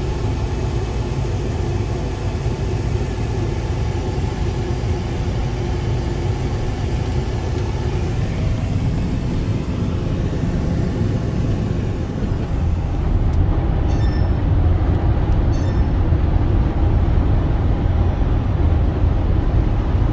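Vehicle noise heard from inside a car: at first a steady engine hum with a few level tones, then, about two-thirds of the way through, a louder steady rumble of road and wind noise at highway speed beside a semi truck.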